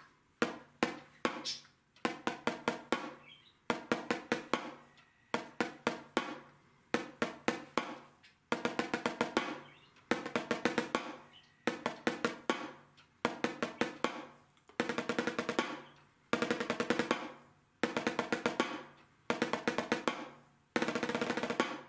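Drumsticks on a practice pad playing the ruffs-to-rolls exercise: repeated groups of quick strokes with short gaps between them. The groups start as short ruffs of a few strokes and grow, past the middle, into longer, denser rolls of about a second each.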